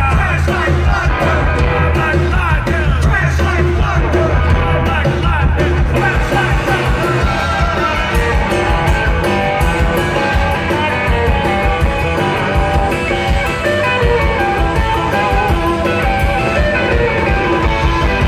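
Live rockabilly band playing loud rock and roll, with electric guitar, bass, drums and singing.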